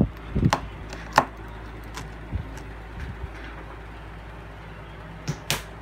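Handling noise: a few scattered light clicks and knocks of objects being moved on a desk, the loudest a quick pair near the end, over a steady fan hum.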